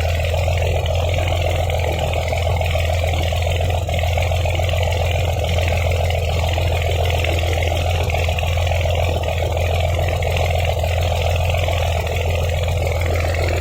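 A steady, unchanging low engine drone.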